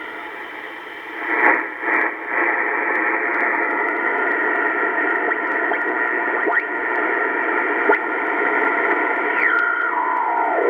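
Receiver hiss from a Kenwood TS-820S shortwave transceiver's speaker on the 80-meter band with no antenna connected, a steady rushing noise. Two short louder bursts come about a second and a half and two seconds in, and a whistle falls in pitch near the end.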